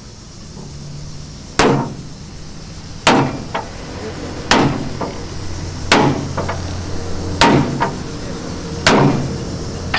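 Sledgehammer blows on a hand-held rivet snap, hot-riveting a red-hot steel rivet into a truck chassis frame. Six heavy metal strikes about one and a half seconds apart, each followed by a lighter rebound tap and a short ring.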